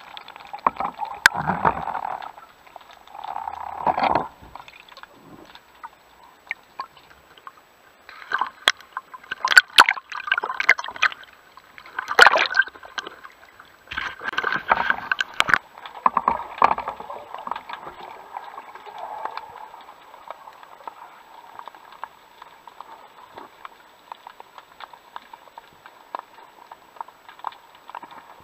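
Seawater sloshing, gurgling and splashing around a speargun-mounted camera, heard through the waterproof housing, as irregular bursts with scattered clicks. The bursts are loudest in the middle and settle to a quieter gurgle near the end.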